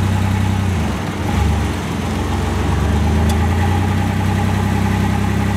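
Chevrolet S10 pickup's engine running at low speed while it maneuvers a gooseneck trailer loaded with over 14,000 pounds. Its low hum dips and changes briefly about a second in, then runs steadily again.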